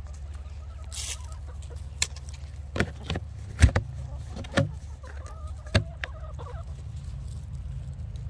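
Backyard hens clucking in their run, most clearly past the middle, with a handful of sharp knocks between about two and six seconds in, over a steady low hum.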